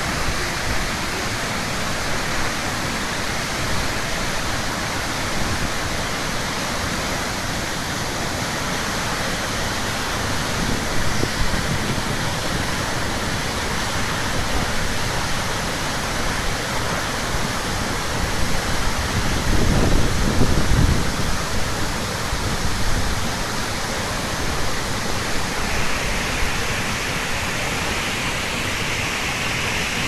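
Tall waterfall with several streams plunging onto rocks: a steady, even rush of falling water, with a brief low rumble about two-thirds of the way through.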